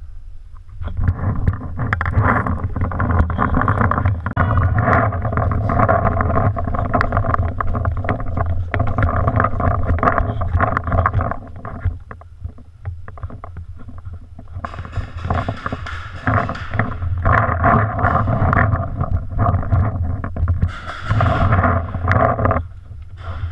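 Muffled rumbling and rustling from a gun-mounted GoPro in its housing as the player moves, in two long stretches with a quieter gap about halfway through.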